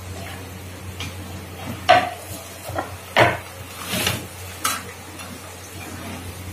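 A metal ladle knocking and scraping against a frying pan as fried chicken pakora pieces are scooped out of the hot oil: about six separate clinks and scrapes, the loudest about two and three seconds in, with a faint sizzle of the frying oil underneath.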